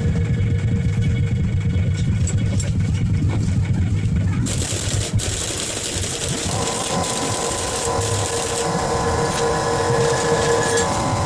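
A small engine running with a rapid, even pulse, with background music over it; the engine sound changes about halfway through.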